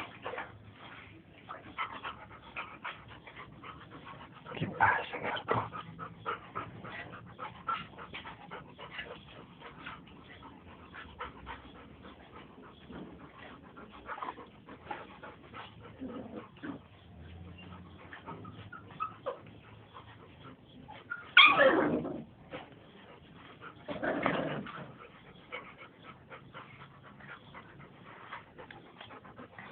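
Puppies whimpering and yipping, with many small scattered sounds. Louder cries come about five seconds in and twice more near the end, the first of those the loudest.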